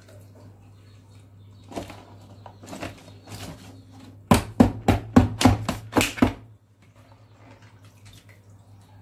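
Shredded red cabbage and vegetables being pressed down by hand into a large glass pickling jar: soft rustling and small knocks, then a quick run of about eight dull thumps over two seconds, over a steady low hum.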